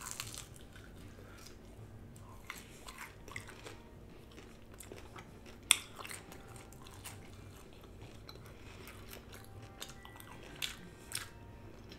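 Close-miked mouth sounds of a person biting and chewing leftover Wingstop chicken wings, with scattered small crunchy clicks and one loud, sharp click about halfway through.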